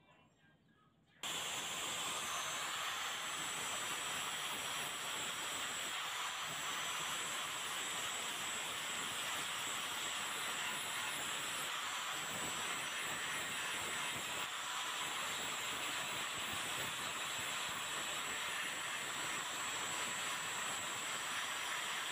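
Angle grinder with an abrasive disc grinding a rusty scissor blade, starting suddenly about a second in and then running steadily, metal ground against the disc.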